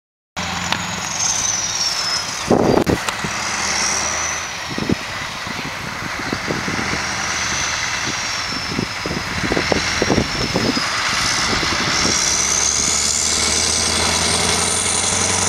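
Scania V8 diesel truck engine running as the tanker rig drives closer, getting louder in the last few seconds. Some short low thumps come in during the first part.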